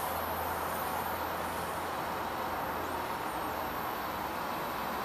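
Small oxyacetylene jeweler's torch flame burning with a steady rushing hiss while it heats a silver-braze joint on a thin bandsaw blade, over a low steady hum.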